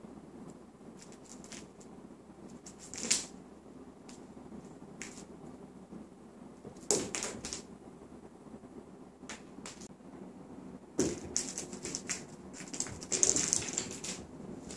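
A British Shorthair kitten's paws and claws skittering and tapping on a wooden floor as it chases a small toy mouse. Scattered clicks and scrapes, with short bursts of scrabbling about three, seven and eleven seconds in, busiest near the end.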